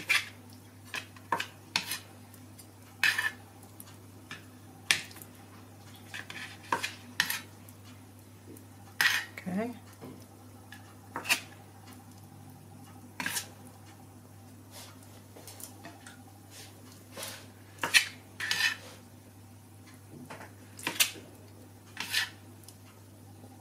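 Chef's knife cutting through mozzarella and knocking against a plastic cutting board: sharp, irregular knocks, one or two a second with short pauses between.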